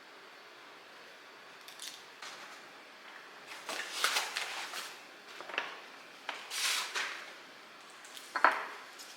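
Kitchen items being handled: a few short bursts of rustling and clattering, with a sharp knock near the end.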